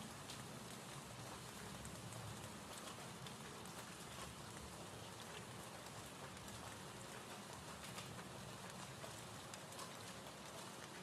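Faint, steady recorded rain ambience: an even hiss of rainfall with scattered small droplet ticks.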